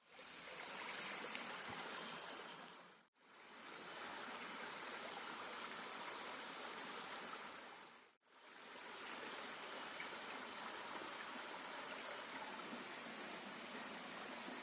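Jungle stream running steadily, an even rush of water that fades out briefly twice.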